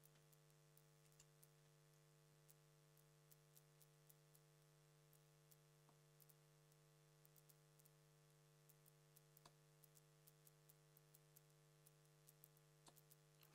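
Near silence: a faint steady mains hum with scattered faint ticks. Three slightly clearer ticks, a few seconds apart, are darts landing in the board.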